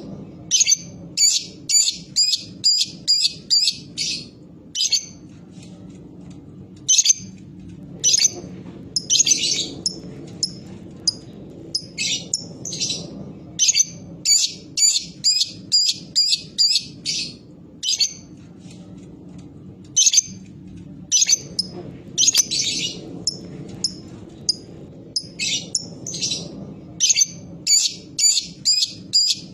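Lovebird calling in runs of short, sharp, high chirps, about three or four a second (the 'ngetik' call). A few longer, denser chattering bursts break in twice.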